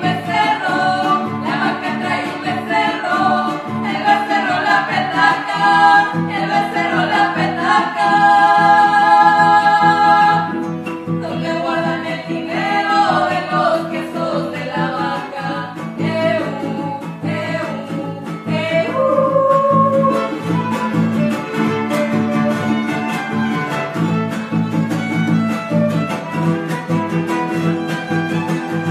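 Son huasteco trio playing a huapango: violin, jarana huasteca and huapanguera strummed under women singing a verse, with a long held note near the middle. About two-thirds of the way through, the singing stops and the violin carries an instrumental passage over the strumming.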